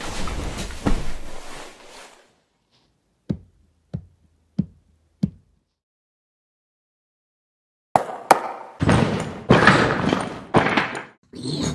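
Four sharp knocks, evenly spaced about two-thirds of a second apart. Before them comes a couple of seconds of rushing noise, and a few seconds after them a stretch of irregular clattering noise.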